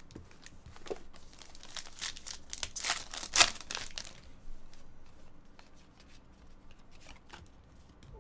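Foil trading-card pack wrapper crinkling and tearing open, with a dense run of sharp crackles about two to four seconds in, the loudest near three and a half seconds, then fainter rustles and clicks as the cards are handled.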